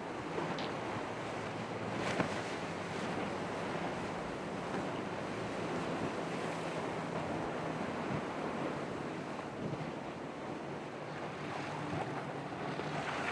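Surf and waves washing at the inlet, with wind buffeting the microphone and the faint steady low hum of boat engines underneath.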